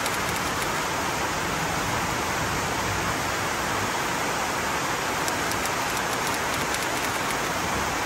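Steady, unbroken rushing water noise, with no change in level.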